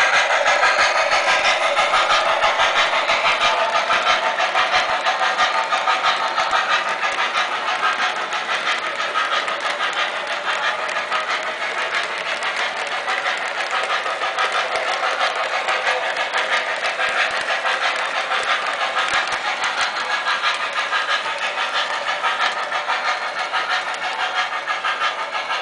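A three-rail O gauge model freight train rolling past on its track, hauled by a model PRR I1 Decapod steam locomotive: a steady metallic running of wheels on the rails that slowly gets quieter as the train moves away.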